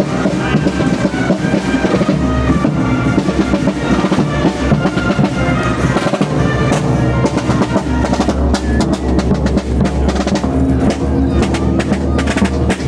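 A marching band of clarinets and brass playing, with drums. The drum strokes come through sharper in the second half.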